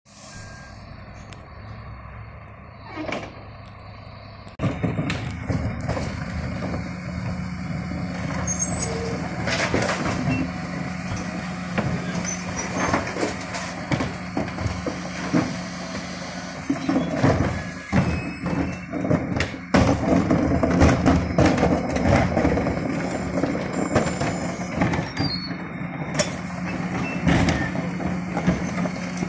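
Refuse truck with a Heil Powerlink body and Terberg split bin lifters running steadily, louder from about four and a half seconds in. Plastic wheelie bins are lifted and tipped into the rear, with repeated clattering knocks and bangs, busiest in the second half.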